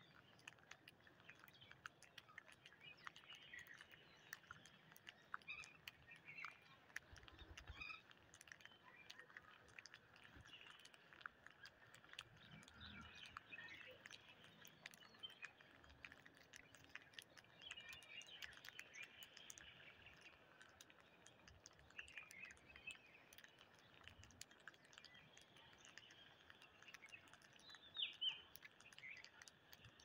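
Faint, scattered chirps and twitters of rose-ringed parakeets feeding, over light clicking of beaks picking rice grains off concrete. The loudest is a pair of sharp chirps near the end.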